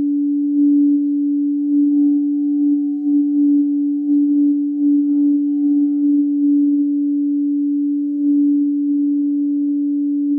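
Frosted quartz crystal singing bowl tuned to D, sung by circling a mallet around its rim: one steady sustained tone with fainter higher overtones, swelling and dipping slightly, with faint rubbing of the mallet on the rim.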